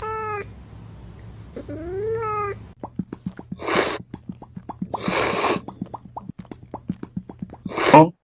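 A cat meows twice, short rising-and-falling calls. Then comes a run of quick sharp clicks broken by three loud hissing rushes, the last ending in a brief yowl, and the sound cuts off suddenly.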